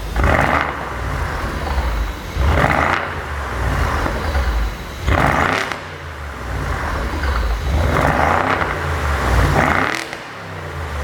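BMW 550i's twin-turbo V8 revved about four times, each blip followed by crackling and popping from the exhaust as the revs drop: overrun pops from a pop-and-crackle tune.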